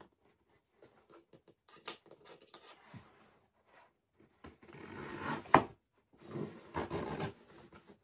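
Cardboard shipping box being handled and opened: scattered light taps and rubs, then two longer stretches of scraping on the cardboard a little after halfway and near the end, with one sharp, loud click between them.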